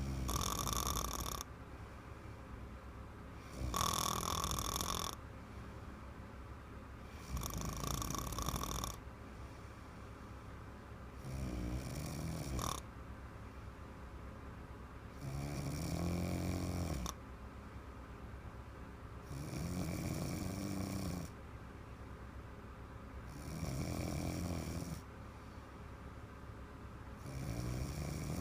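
A woman snoring in deep sleep, a snore about every four seconds, each lasting about a second and a half.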